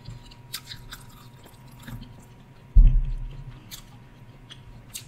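A person chewing a mouthful of deep-dish pizza with the mouth closed, with soft wet smacks and clicks scattered through. There is one louder low thump a little under three seconds in.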